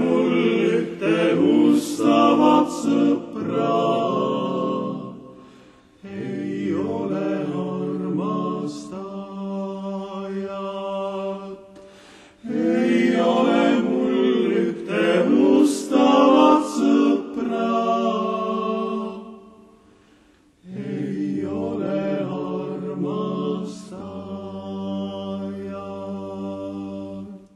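Male vocal quintet singing in close harmony, without instruments, in four phrases with short breaks between them. The last phrase ends on a long held chord, a low bass note joining it near the end, before it cuts off.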